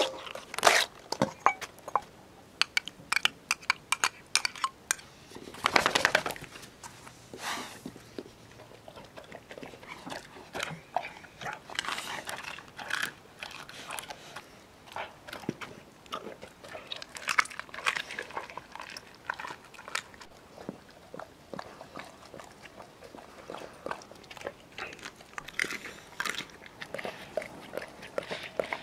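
Weimaraner crunching and chewing raw food in a stainless steel bowl, with many short, sharp crunches and bites. A longer noisy stretch comes about six seconds in.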